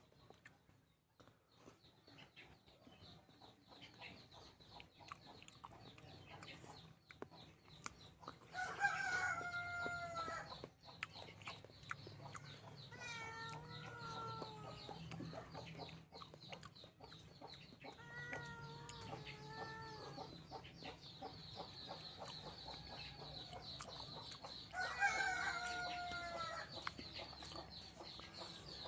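Roosters crowing four times, each crow a drawn-out call of about one and a half to two seconds, over a steady high buzz.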